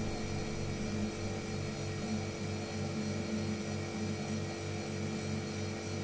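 A low, steady hum that throbs evenly a few times a second.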